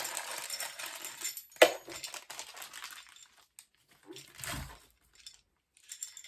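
Plastic packaging crinkling as small pegboard parts are handled, with a sharp click about one and a half seconds in and a dull knock a few seconds later.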